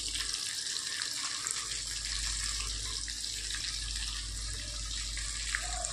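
Small fish deep-frying in hot oil in a kadhai: a steady sizzle with scattered small crackles.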